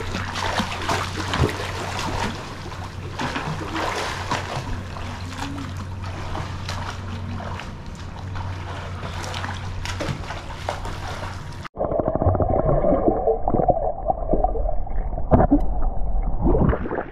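Pool water splashing and lapping as a swimmer swims strokes, with many short splashes. About twelve seconds in, the sound suddenly turns muffled and low as the microphone goes underwater, and bubbling and rumbling take over.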